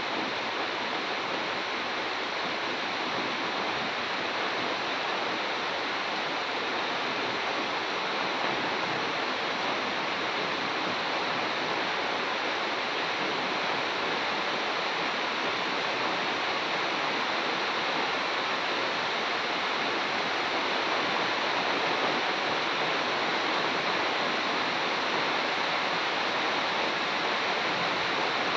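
Steady rain falling on palms and trees: an even, unbroken hiss that grows slightly louder near the end.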